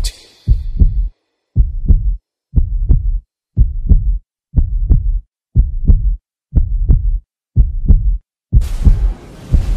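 Heartbeat sound effect: deep double thumps, lub-dub, about one a second. A hissing noise comes in over the beat near the end.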